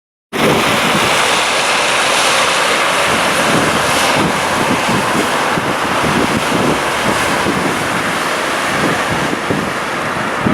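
Strong wind blowing over wind-driven harbour water during a storm-surge flood: a loud, steady rushing hiss of wind and waves, with irregular low buffeting of the wind on the microphone.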